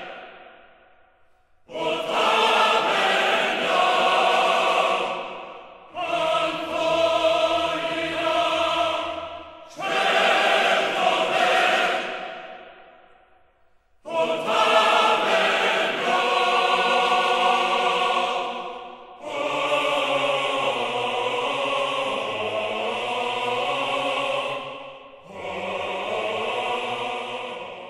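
A choir singing long held chords in about six phrases of a few seconds each, with short breaks between them.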